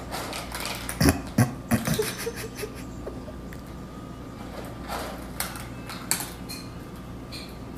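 Cat eating dry kibble from a bowl: crunching and chewing, with sharp clicks of food against the bowl, loudest about a second in.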